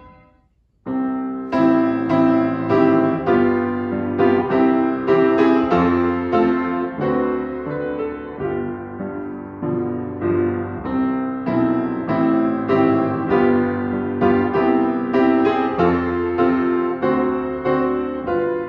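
Upright piano played in a steady run of chords, starting about a second in.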